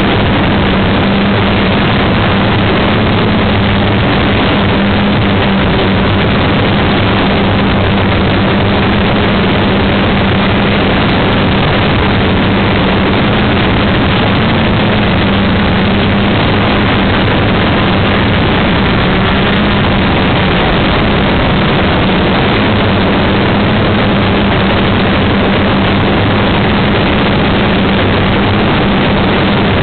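Quadcopter's electric motors and propellers running steadily, heard from a camera mounted on the craft itself: a loud, even rush of propeller wash with a steady low hum underneath.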